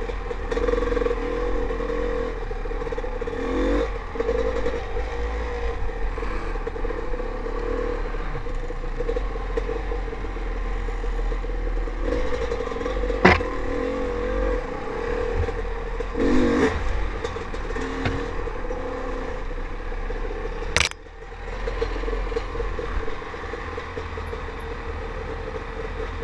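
Dirt bike engine running at low speed on a rocky trail, its note wavering up and down with the throttle. Clatter from the bike over rocks, with a sharp knock about 13 seconds in and another, louder one about 21 seconds in.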